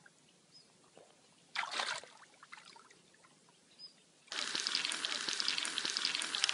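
A brief splash of water about a second and a half in as a carp is let go in the shallows. Then, about two-thirds of the way through, a steady crackling sizzle of food frying in a pan starts suddenly.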